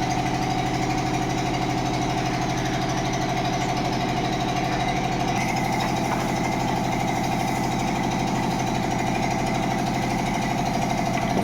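Water pump motor running steadily with a constant hum and a fast, even rattle. Its tone shifts slightly about five seconds in.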